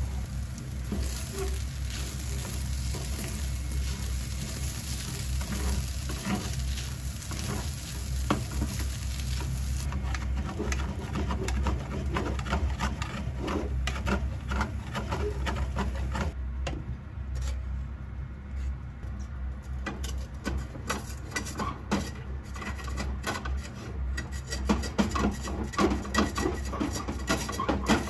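Fried rice sizzling in a nonstick frying pan as it is stirred with a spatula. About ten seconds in, the sizzle fades, leaving the clicking and scraping of a spatula and chopsticks against the pan, with a quick run of scrapes near the end as the browned, stuck-on rice is scraped off the bottom. A low steady hum sits underneath.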